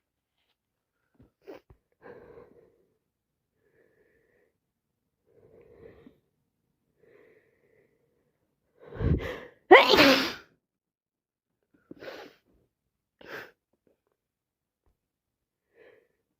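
A woman with a head cold sneezing: a few quiet breaths, then a gasping intake and one loud sneeze about ten seconds in, followed by two short bursts of breath.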